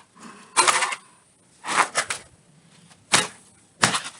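Sledgehammer blows smashing an iPad: four loud impacts, roughly a second apart.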